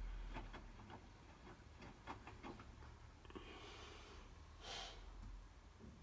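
Hotpoint WMFUG 942 washing machine running quietly, with scattered faint clicks and a short breath-like hiss about five seconds in.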